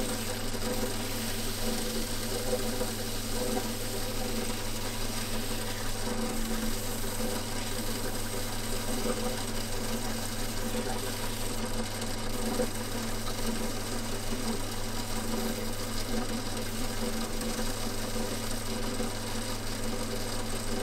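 Belt-driven workshop machine running steadily with an even motor hum, set to a higher speed on its pulleys.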